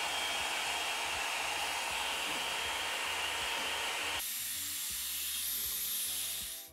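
Hand-held hair dryer blowing steadily. About four seconds in, its rush thins to a higher hiss.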